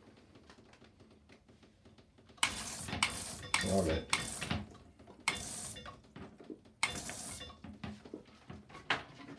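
Handheld bidet sprayer shooting water in five short bursts, a hissing spray that splashes against a hard surface.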